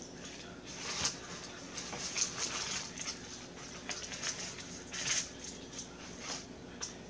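A person chewing a mouthful of sandwich close to the microphone: irregular soft wet smacks and clicks. A faint steady hum runs underneath.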